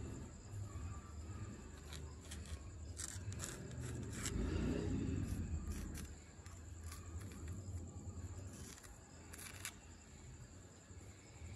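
Faint handling sounds of a green marble slab being shifted and tilted: light scrapes and a few sharp clicks, with a dull rumble about four seconds in, over a low steady hum.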